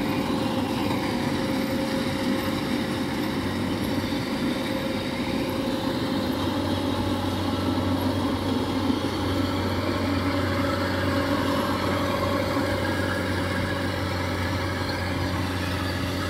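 Tracked rice combine harvester running steadily as it works the field, its engine a constant drone with a steady whine. About six and a half seconds in, a second engine's low, steady hum joins.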